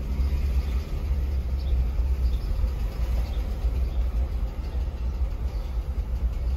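A car driving, with a steady low engine and road rumble.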